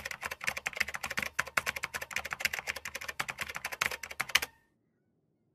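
Computer keyboard typing, a rapid run of key clicks that stops suddenly about four and a half seconds in.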